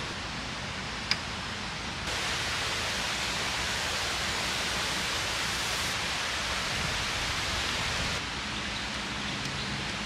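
Steady rushing of a river. It gets louder about two seconds in and drops back near the end, with a single sharp click about a second in.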